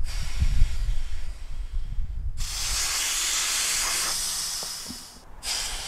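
Air hissing out of the open deflation valve of a Saturn SD330 inflatable boat's PVC tube, a steady high-pitched rush starting about two and a half seconds in and fading away near the end. A low rumbling noise comes before it.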